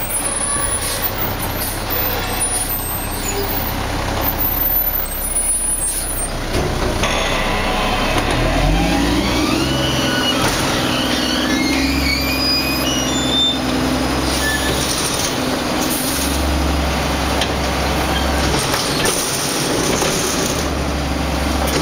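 Mack MR front-loading garbage truck, its diesel engine revving up about eight seconds in to drive the Heil Half/Pack body's hydraulic fork arms as they lift a dumpster over the cab. High squealing tones climb in pitch while the arms rise, and the engine stays revved, swelling again later on.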